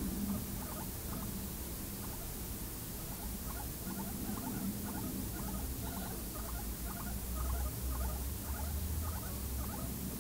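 Two guinea pigs feeding at a food bowl, making a quick, irregular run of small sounds several times a second over a low steady hum.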